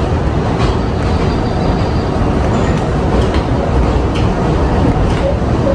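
New York City subway 6 train running, heard from inside the car: a steady rumble of wheels on rails, with a few faint clicks.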